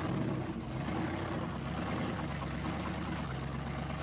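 Supercharged engine of the Bigfoot monster truck, a Ford pickup on giant tyres, running steadily as the truck drives along.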